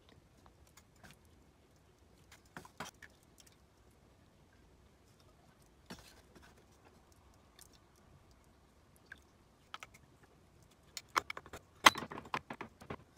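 Wooden chopsticks and a wooden spoon clicking and tapping against glass food containers and a pan while cooked greens are portioned out: scattered light taps, then a busier clatter near the end.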